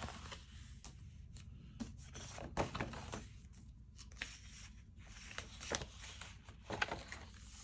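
Pages of a large discbound paper planner being turned by hand: faint paper rustles and swishes, with a few louder flaps about a third of the way in and near the end.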